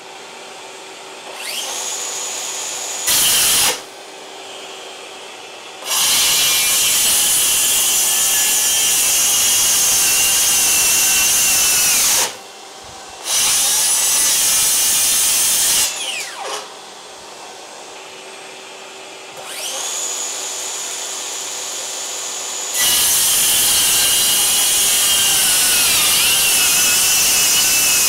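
Bosch GKS18v-25GCN 18 V brushless cordless circular saw, set to speed 6, spinning up with a rising whine and cutting along a track through a thick stack of board in long loud stretches. Past halfway it winds down with a falling whine, then spins up again and cuts until near the end. A dust extractor hums steadily underneath.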